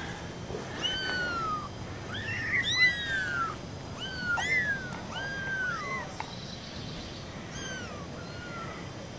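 A litter of four-week-old kittens crying: thin, high meows that rise and fall, many overlapping between about one and six seconds in, then only a few. The kittens are afraid at being out of their box for the first time.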